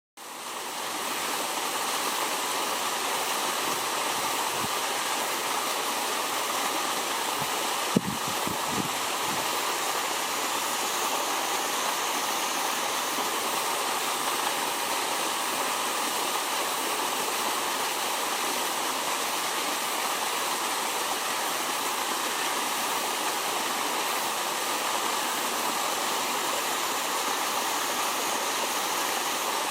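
Water pouring steadily through a pond's drain outflow like a small waterfall, with one sharp knock about eight seconds in.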